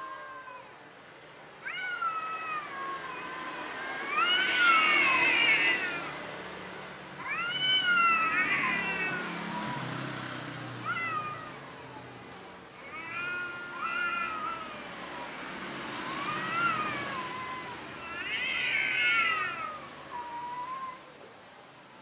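Domestic cat yowling in a standoff with another cat: a series of about eight drawn-out wails a few seconds apart, each rising and then falling in pitch.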